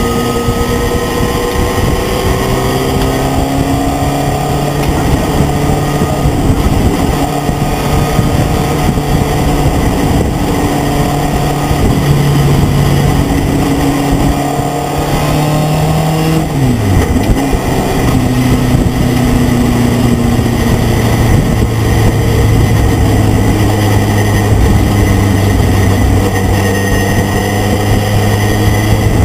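Race pickup truck's engine heard on board at racing speed, its pitch climbing and stepping through gear changes and dropping sharply about halfway through, over constant wind and road noise.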